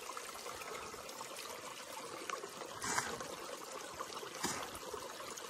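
Small creek's water trickling over a shallow run, a steady gentle rush, with two brief louder hissy swells about three and four and a half seconds in.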